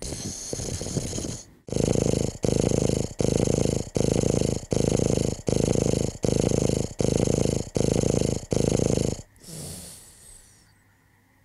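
Snoring: a rough, fluttering snore, then about ten loud, evenly spaced snores coming quickly one after another, fading to a couple of soft breaths near the end.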